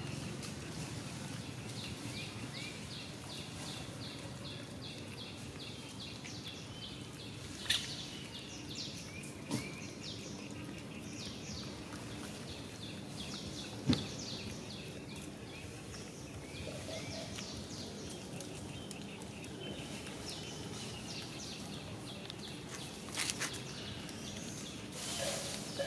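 Outdoor ambience: a steady background hiss with a long run of quick, evenly repeated high chirps through the first half. A few sharp clicks stand out, the loudest about 14 seconds in.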